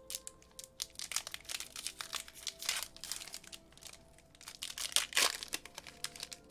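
Foil wrapper of a Pokémon trading card booster pack crinkling as it is handled and opened, in a run of quick crackles with the loudest burst about five seconds in. Quiet background music plays underneath.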